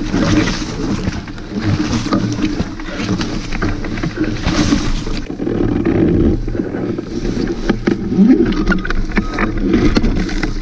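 Wind buffeting the hang glider's camera microphone, with leaves and straw rustling and crackling against the glider's control frame as it moves across the ground.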